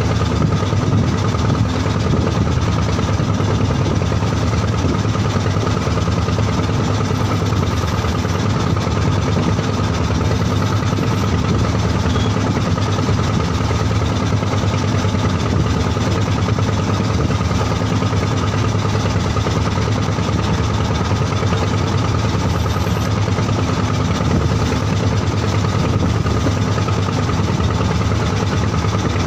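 A wooden fishing boat's engine running steadily while the boat is underway, an even drone that holds the same pitch and loudness throughout.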